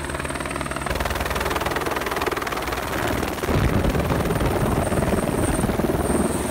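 Turbine helicopter running close by, an Airbus AS350 Squirrel: a steady rotor chop and engine noise with a thin high whine. It grows louder about halfway through, with a heavier low rumble from then on.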